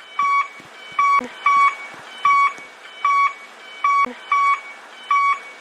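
Japanese railway level-crossing alarm ringing: a repeated electronic bell tone, about one and a half strikes a second, over a steady background hiss.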